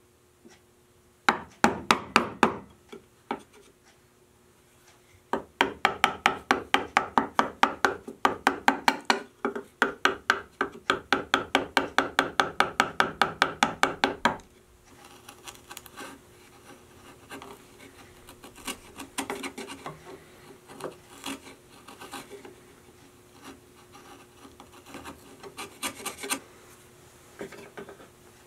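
Mallet tapping a bench chisel to trim the walnut edge of a clamped box: a short quick run of taps about a second in, then a long even run of about four taps a second. After that come quieter, irregular scrapes of the chisel paring the wood.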